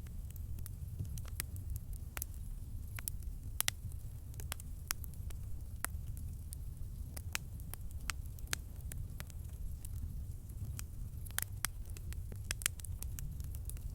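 Wood campfire crackling: irregular sharp pops and snaps over a steady low rumble of the flames.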